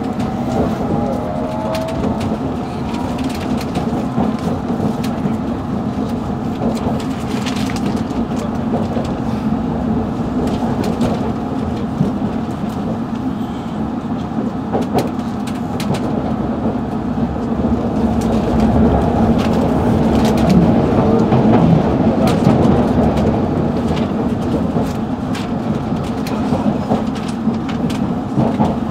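London Underground Metropolitan line train running between stations, heard from inside the carriage: a steady rumble and rattle of wheels on track. A rising motor whine fades out in the first second, and the running grows louder about two-thirds of the way through.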